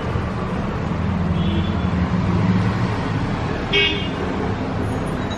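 Steady low rumble of road traffic, with a short vehicle horn toot about four seconds in and a fainter one earlier.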